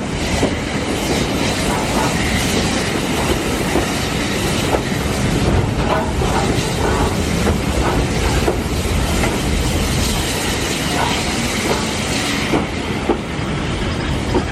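A train running along the track: a steady rumble with wheels clicking over the rail joints.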